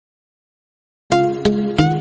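Silence, then music starting about halfway in: a rhythmic run of quick, evenly spaced plucked-sounding notes, about three a second.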